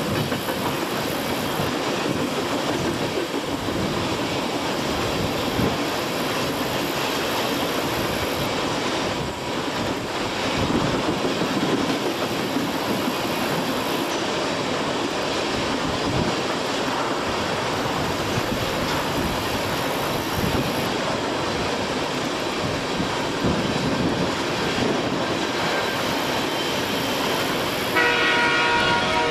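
Ontario Southland Railway FP9u diesel locomotives hauling a freight train past, a steady rumble of engines and rolling cars. Near the end the locomotive horn sounds.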